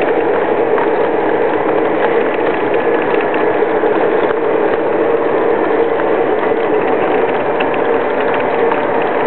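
Lionel O-gauge passenger cars rolling past on three-rail track behind Lionel Legacy F7 diesels: a steady metallic rumble of wheels on rail with quick light clicking. A steady hum runs underneath.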